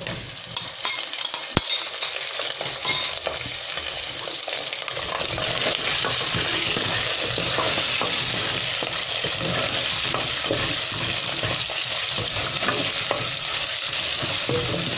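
Pre-boiled beef pieces sizzling as they fry in hot oil with browned onions and whole spices, stirred with a wooden spoon. There is a sharp knock about a second and a half in, and the sizzle grows louder and steadier after about five seconds.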